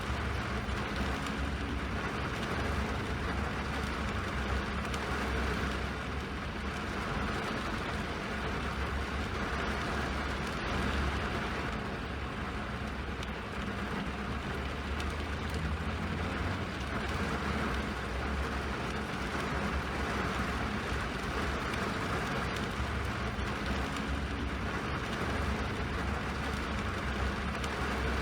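Steady rain: a continuous even hiss over a deep low rumble, with no breaks.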